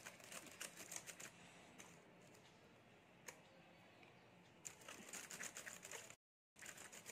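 Faint clicking of laptop keys pressed by a toddler's fingers: a flurry of clicks at the start, a single click in the middle, and another flurry near the end.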